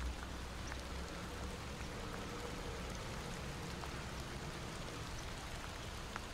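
Faint, steady hiss of background noise with a low hum underneath. There are no distinct events.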